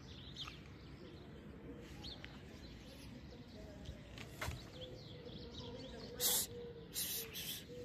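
Outdoor background noise with faint small-bird chirps in the first few seconds, then a few short, loud scratchy noises near the end.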